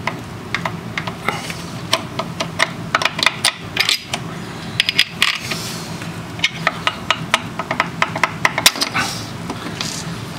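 Rapid, irregular metallic clicking and clinking of a steel connecting-rod cap being rocked by its two rod bolts and worked off the crankshaft journal of a 1966 Ford FE 410 engine.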